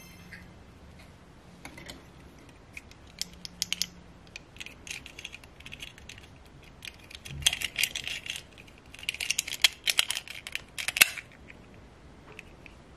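Hard plastic clicking and clattering as a small plastic doll is fitted into a clip-on plastic dress over a tub of plastic beads, with the beads rattling under the hands. The clicks are scattered at first and come thick and fast in the second half.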